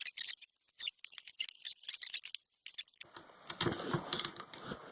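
Rapid small clicks and scrapes of the parts of a compressor's pressure switch being handled and fitted together by hand. A steady background hiss comes in abruptly about three seconds in.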